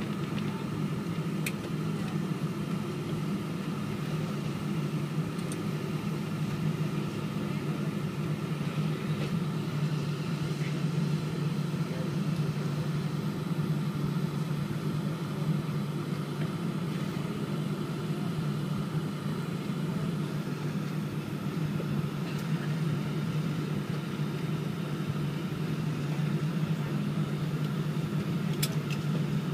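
Inside the cabin of a Boeing 777-200 taxiing after landing: a steady low hum from its Rolls-Royce Trent engines at idle, with a fainter steady whine above it. Two faint clicks, about a second in and near the end.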